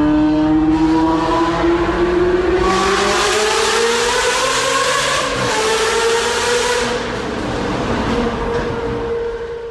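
Sports car engine revving up, its pitch rising steadily as it accelerates. A loud rushing noise comes in from about three to seven seconds in, and near the end the engine holds a steady note.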